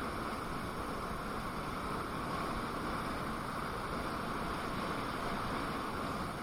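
Steady rush of wind and road noise while riding an electric unicycle at speed.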